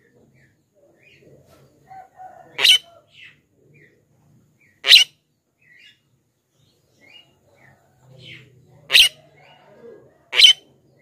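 Javan myna (jalak kebo) giving four short, loud calls a few seconds apart, with fainter chirps in between.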